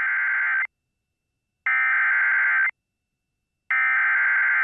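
Emergency Alert System SAME header: three identical bursts of data screech, each about a second long with a second of silence between them. The first burst is already under way at the start. It is the digital code that opens an EAS warning.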